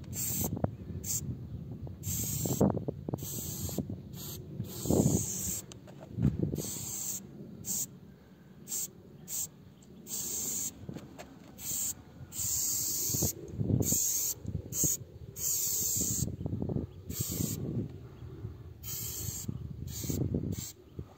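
Aerosol spray-paint cans hissing in repeated bursts, some short and some lasting a couple of seconds, stopping and starting as paint goes on the wall. Intermittent low rumbles come in between.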